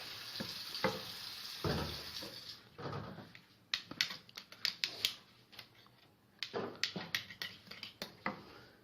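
A spoon scraping and tapping against a jar as a thick garlic-and-fig paste is packed into it: a soft scraping for the first couple of seconds, then a run of light, irregular clicks and taps.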